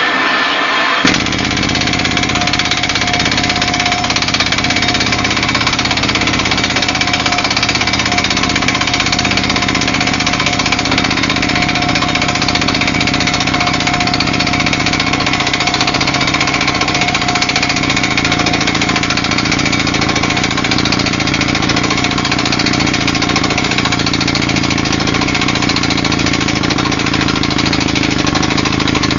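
Roof-bolting drill rig running loud and steady while drilling for a roof bolt in a coal mine, a continuous mechanical drone whose deep low end comes in about a second in.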